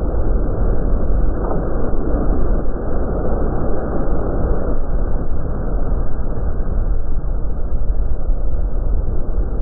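Steady rumble and rush of a boat under way at sea: engine noise mixed with water and wind noise, unchanging throughout.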